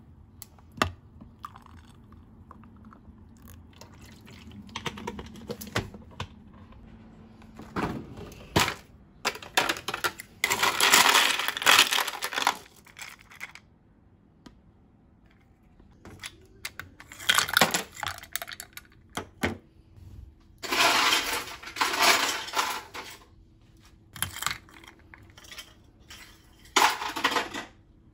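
Ice cubes rattling and clinking as they are scooped with a plastic scoop from a freezer ice bin and dropped into a glass of coffee, in several loud bursts separated by short pauses.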